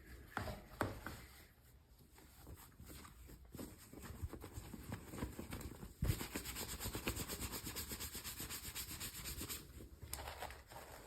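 Hands handling and opening toy packaging: rubbing and crinkling with a few light clicks, then a fast, even run of scratchy rubbing strokes that starts about six seconds in and stops a few seconds later.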